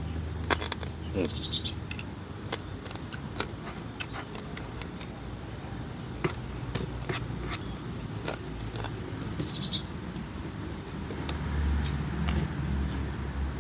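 Insects chirring steadily on a high note, with a string of sharp crunches and smacks as a man chews adobo quail, bones and all. A low rumble rises near the end.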